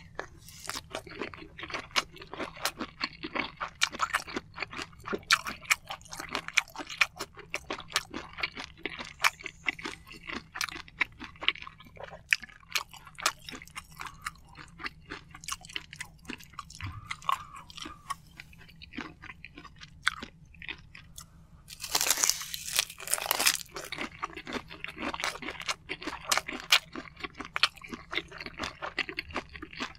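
Close-miked chewing of soy-sauce-marinated shrimp with rice: wet mouth sounds and many small crackling clicks. A louder burst lasting about a second and a half comes about two-thirds of the way through.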